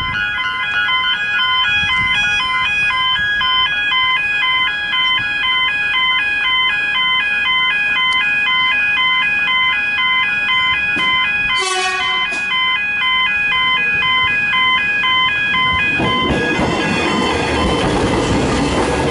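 Level crossing's Barker's Technics electronic bell ringing a steady, repeating ding pattern while the crossing is active, with a short break about twelve seconds in. From about sixteen seconds in, the rumble of an electric suburban train passing over the crossing builds up beneath the bell.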